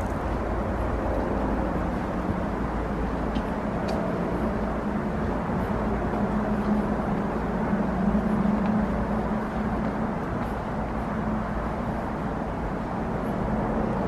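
Steady outdoor rumble of distant city traffic, with a low hum that swells briefly about six to nine seconds in.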